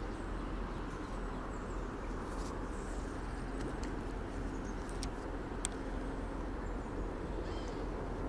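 Steady outdoor background noise: an even low hum with a few faint, brief high clicks.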